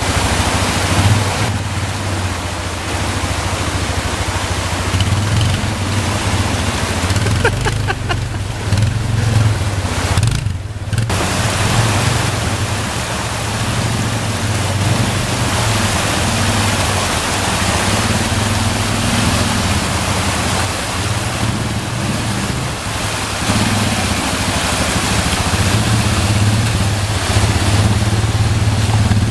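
Off-road vehicle engine running steadily at a low, even hum, under a constant rushing noise.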